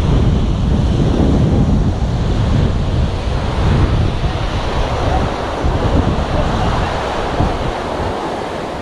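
Wind buffeting the microphone with a low rumble, over a steady wash of sea waves breaking on the shore; the rumble eases a little near the end.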